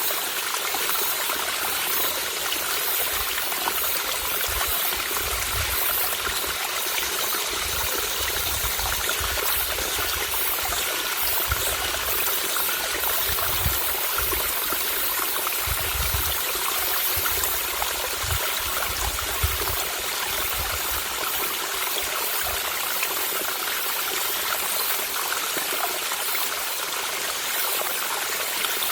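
Small mountain stream trickling and babbling over rocks, a steady flowing-water sound with no break.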